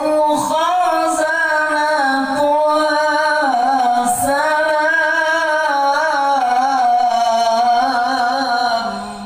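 A qori, a Quran reciter, chanting one long melismatic phrase in a high voice through a sound system, the pitch winding up and down with ornaments. The phrase drops in pitch at the end and fades out just before the close.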